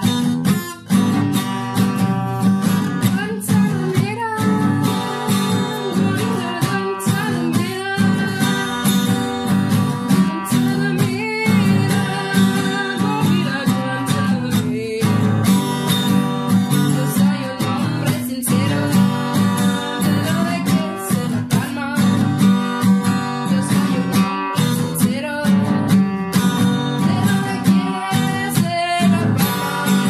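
Background music: a song with strummed acoustic guitar and singing.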